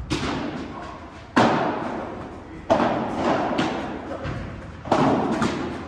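A padel rally: the ball is struck hard four times by solid padel paddles, about every one to two seconds, each sharp hit ringing on in the hall's long echo.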